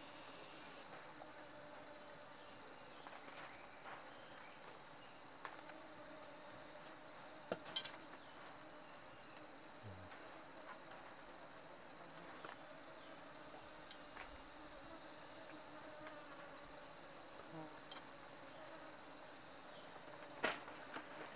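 Steady, high-pitched drone of insects, a cricket- or cicada-like chorus, with a few light clicks and knocks: two close together about a third of the way in and another near the end.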